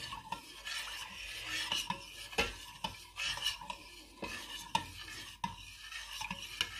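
A spoon stirring the turmeric, honey and lemon drink in its container, with irregular clinks and scrapes against the sides; the honey is still not fully mixed in.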